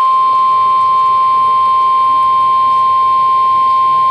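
NOAA Weather Radio 1050 Hz warning alarm tone: a single steady, unbroken beep. It is the attention signal that comes before a special marine warning is read out.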